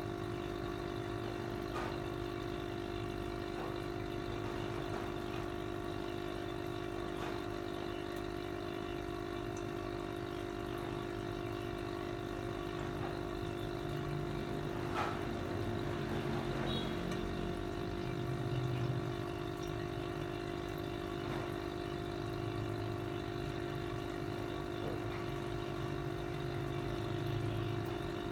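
Aquarium air pump humming steadily, with air bubbling up through the water of the fish bowl.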